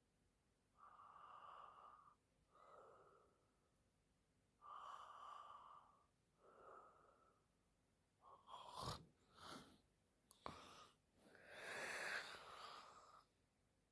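A sleeping woman's faint breathing, slow soft breaths with pauses between them, turning about eight seconds in into a few short sharp snorts and then a louder snoring breath.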